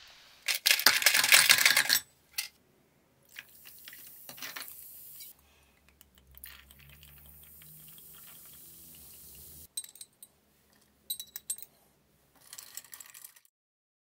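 Ice cubes clattering into a stemmed balloon (coppa) glass in a loud rattling burst about half a second in, followed by liquid, Prosecco among it, poured over the ice with a crackling fizz. Near the end a few sharp clinks as blueberries drop into the glass.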